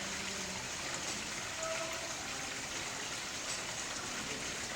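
Steady outdoor hiss like falling rain or running water.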